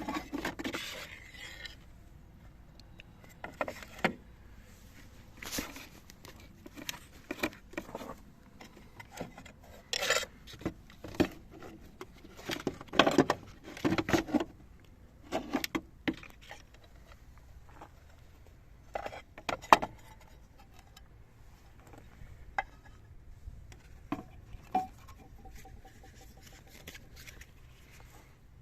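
Irregular knocks, clicks and scrapes of hard objects being handled, with a brief run of quick, even pulses in one tone near the end.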